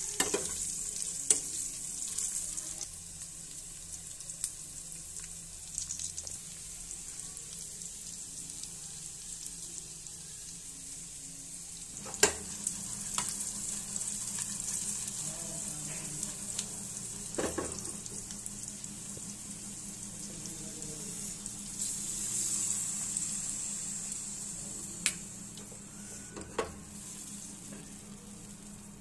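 Mutton pieces frying in oil in a black wok, a steady sizzle, stirred with a metal spatula that scrapes and knocks against the pan now and then. A low steady hum joins about halfway through, starting with a sharp knock.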